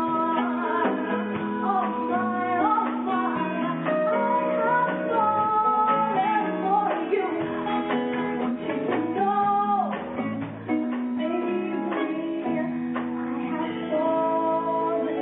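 Live band playing: a woman singing into a microphone over keyboard, guitar and drum kit, with steady drum hits throughout.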